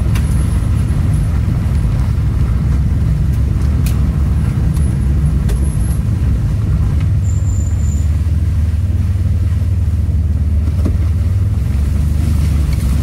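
Steady low drone of an AWD minivan's engine and drivetrain heard from inside the cabin, crawling along a rough dirt track. A few faint clicks or knocks sound from the body over the bumps.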